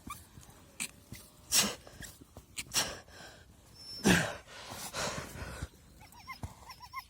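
Dogs barking a few short, loud times, then whining in quick high chirps near the end.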